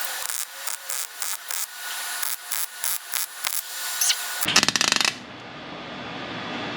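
Light clicks and taps over a steady hiss, then, about four and a half seconds in, a short half-second burst of MIG welding crackle on the Range Rover's steel firewall. The welder's shielding gas is off, which he later blames for poor welds.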